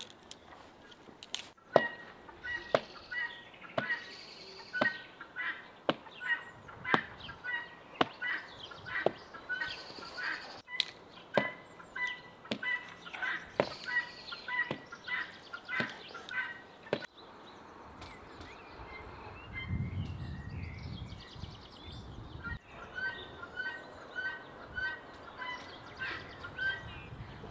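Sharp knocks repeating about once a second for roughly fifteen seconds, with birds chirping throughout. The knocks stop about two-thirds of the way in, a low rumble follows briefly, and the birds go on chirping.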